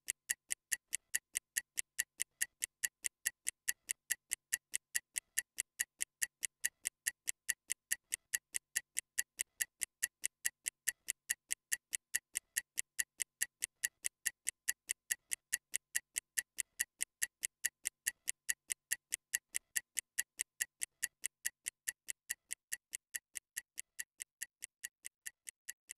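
Stopwatch ticking sound effect, a steady, fast tick about four times a second, timing a 30-second interval.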